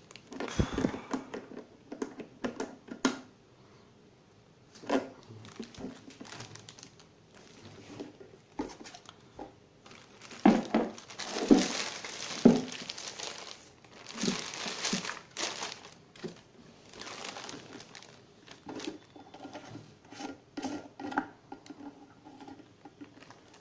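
Clear plastic bags of fittings crinkling and rustling as they are handled, in irregular bursts, mixed with clicks and knocks of hard plastic cistern parts.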